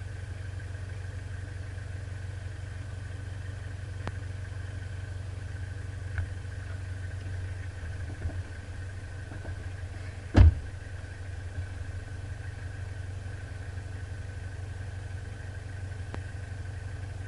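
Off-road vehicle engine idling steadily as a constant low hum. One sharp thump comes about ten and a half seconds in, with a few faint knocks around it.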